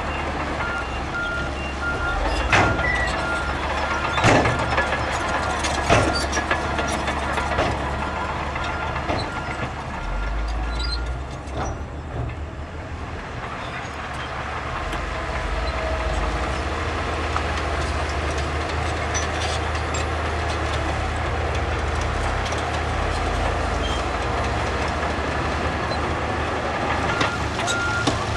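Heavy earthmoving machinery running steadily with a deep engine drone. A reversing alarm beeps evenly for about the first third and again near the end. There are several sharp clanks in the first few seconds.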